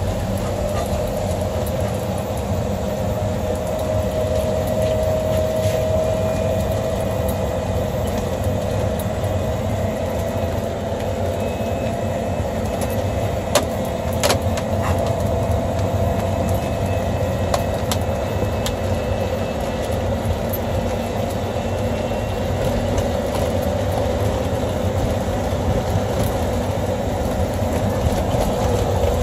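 Vehicle driving on a wet road in the rain: steady road and drive noise with a thin whine that drifts slowly up in pitch and back down with speed. A few sharp clicks or knocks come about halfway through.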